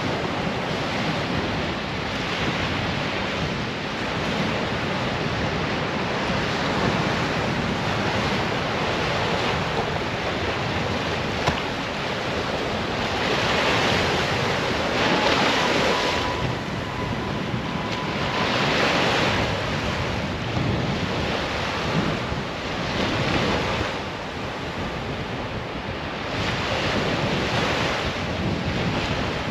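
Ocean surf washing onto a sandy beach, swelling and easing as waves break every few seconds, with wind buffeting the microphone.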